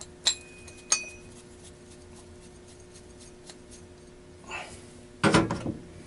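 Metal parts of a Lennox pulse furnace's air flapper valve housing being unscrewed and handled: two sharp metallic clinks in the first second, the second ringing briefly, then a louder rattling clatter near the end as the pieces are pulled apart.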